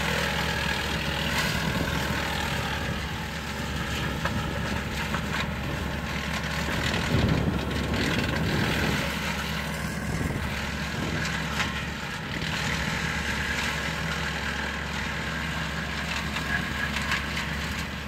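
Woodland Mills TF68 PRO PTO-driven wood chipper running off a compact tractor and chipping evergreen branches: the steady drone of tractor and chipper under the crackle of wood being cut and chips blown out the chute, briefly louder about seven seconds in.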